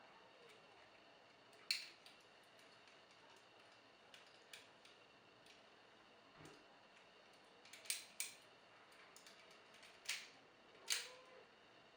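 Hard plastic parts of a Titan Megazord transforming toy clicking and snapping as pieces are fitted together by hand: a sharp click about two seconds in, then several more clicks close together near the end.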